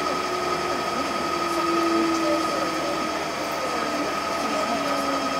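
JR Central 211 series 5000 electric train running slowly alongside a station platform, heard from the driver's cab: steady running noise with a constant high tone and a lower hum that drifts slightly down in pitch.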